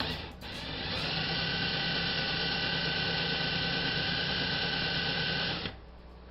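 Electric drill running steadily with a high whine as it bores a small hole into the top of an oak ratchet catch to seat a spring. It spins up over the first second and stops suddenly about five and a half seconds in.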